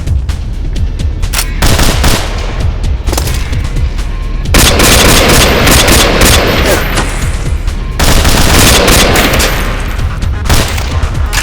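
Designed gunshot sound effects: many sharp shots and bursts of rapid automatic fire, densest from about four and a half to ten seconds in, over a low music bed.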